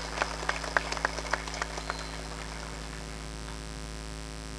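Steady electrical mains hum from a public-address microphone system, with a run of scattered sharp clicks over the first two seconds that then stop.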